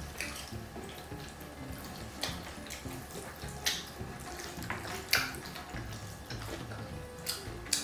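Chopsticks mixing sauce-coated jjajangmyeon noodles in a wide dish: wet, sticky squelching with a few sharp clicks, the loudest about five seconds in.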